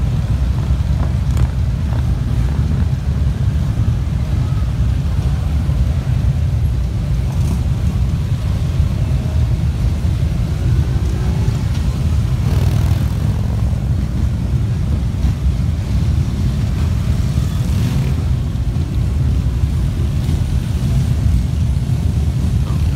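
Steady low rumble of many large touring motorcycles with riders aboard, lined up along the street, mixed with traffic.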